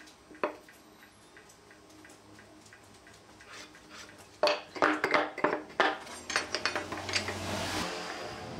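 Light handling clatter of woodworking layout tools on a thick wooden board: a wooden strip and a steel square set down and shifted, with a quick run of sharp knocks and clinks about halfway through and lighter ticks after.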